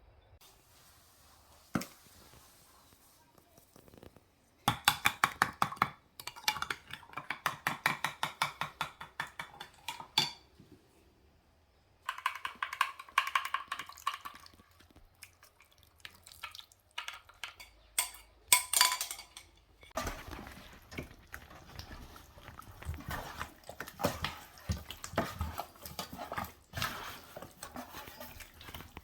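A utensil beating against a bowl while mixing a marinade, in quick runs of rapid, even clinks, then irregular clatter and scraping near the end.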